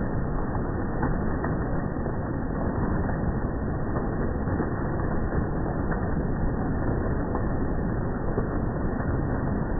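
Hailstones and rain pelting down in a heavy storm: a dense, steady rush with scattered sharper hits. The audio is slowed with the slow-motion footage, so it sounds low and dull, with no high end.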